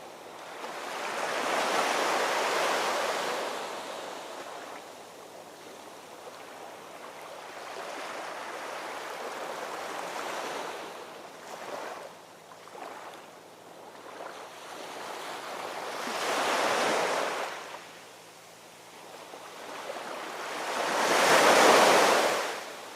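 Ocean waves washing ashore in slow surges, three large breaks rising and falling over a few seconds each with smaller wash between; the last break is the loudest.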